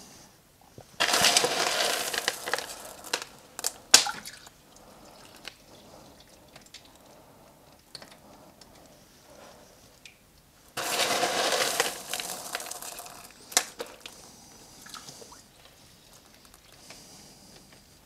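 Fine aquarium gravel poured into the tank in two pours, each a couple of seconds of rushing hiss that trails off into scattered clicks and ticks of small stones.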